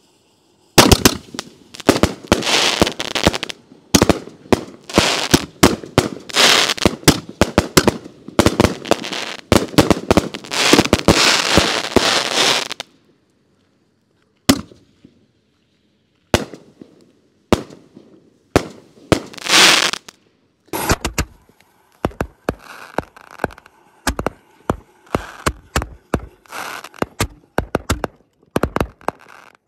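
Quadruple-break artillery shell fireworks launching and bursting in rapid succession: a dense barrage of sharp bangs for about twelve seconds, a short lull with a few scattered pops, then another long run of sharp cracks.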